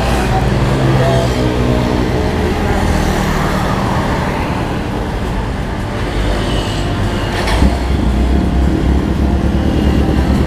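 Big motorcycle engine running steadily, with road noise. A brief knock about seven and a half seconds in.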